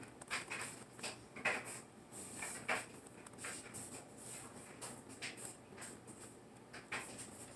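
Faint, irregular small clicks and brief rustles, handling noise made while the web page is scrolled.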